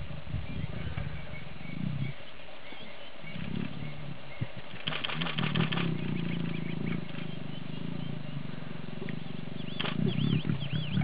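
Lions growling low in rumbling stretches, with birds chirping faintly; near the end a bird repeats a short call several times.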